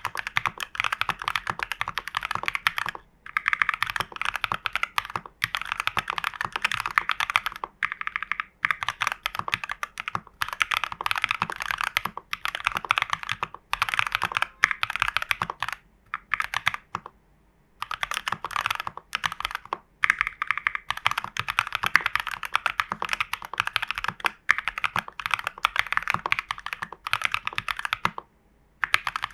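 Typing on a TU40 plastic-case mechanical keyboard with KTT Strawberry linear switches, lubed stabilizers, case and PCB foam and the tape mod: fast runs of keystrokes in bursts of a few seconds, broken by short pauses and one longer pause about halfway through.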